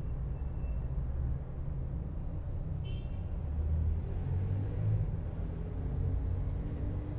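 Steady low rumble of background noise, with a brief high chirp about three seconds in.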